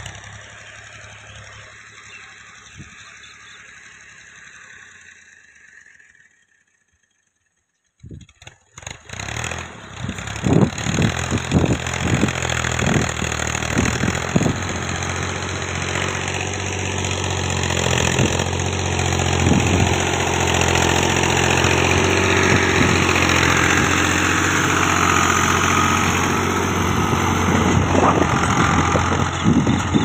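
Fiat 640 tractor's diesel engine running under load while it pulls a chisel plough through the soil, with scattered knocks and rattles. It is fainter at first, drops out for a moment about seven seconds in, then comes back much louder and stays steady as the tractor works close by.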